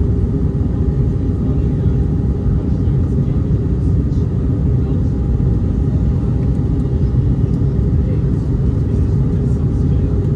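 Steady cabin noise inside an Airbus A319-100 on approach: a loud, even rumble of the engines and airflow, with a faint steady hum over it.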